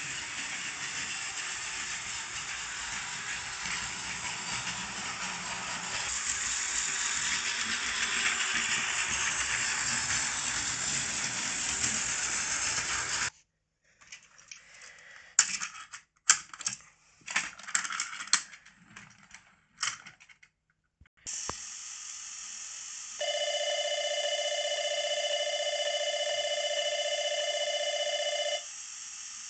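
Plarail battery-powered toy train running on plastic track, a steady whirring rattle, which stops suddenly about 13 seconds in. Small plastic clicks and clatters follow as the toy cars are handled by hand. Near the end, a steady electronic bell-like ringing tone sounds for about five seconds, like a toy station's departure bell.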